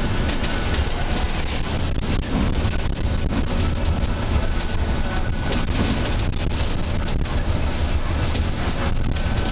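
Bus running along a road, heard inside the cabin: a steady low engine and road rumble with scattered knocks and rattles.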